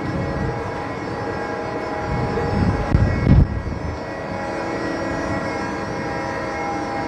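Steady drone of a ship's machinery, with several level humming tones over a hiss. A short burst of low rumble comes about three seconds in.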